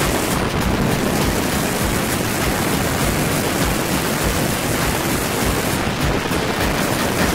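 Loud, steady wind rush buffeting an open-top car at high speed, drowning out the engine.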